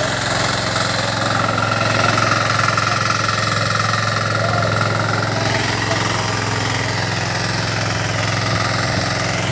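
Farm tractor's engine running steadily while tilling the field. A higher steady tone sits over it from about one to five seconds in.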